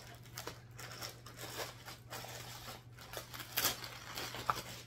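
Thin clear plastic packaging bag crinkling and rustling in irregular crackles as a fabric bag is pulled out of it, loudest about three and a half seconds in.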